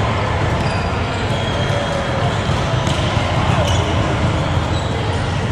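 Volleyball rally in a large gym hall: two sharp ball hits about three and three-and-a-half seconds in, over a steady din of voices and hall noise with a low hum.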